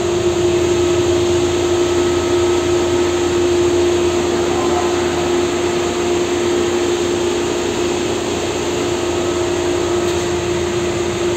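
Rebuilt Hayward Super 2 pool pump with its 3 HP electric motor running steadily under load: an even whirring noise with a constant hum tone. Its running current is within the full-load rating, so the rebuild is working as it should.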